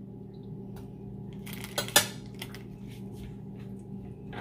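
A metal spoon clinking and scraping against an aluminium wok while a dollop of butter is knocked off it into the heated pan, with two sharp clinks about two seconds in. A steady low hum runs underneath.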